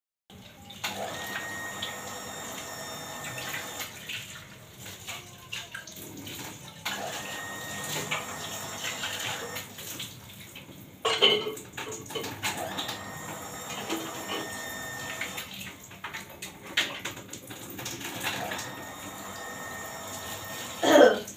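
Kitchen tap running into a sink in spells while dishes are washed by hand, with clinks and clatter of dishes and pans; the loudest clatter comes near the end.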